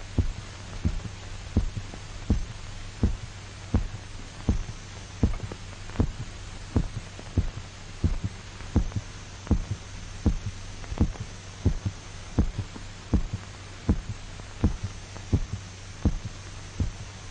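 A dog's heartbeat: regular low thumps, about three every two seconds, over a steady low hum.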